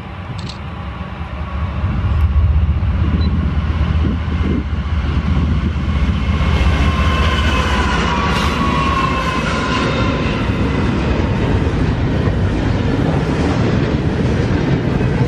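Norfolk Southern freight train rolling past, a steady low rumble of wheels on rail that swells about two seconds in and holds. There is faint high-pitched squealing around the middle.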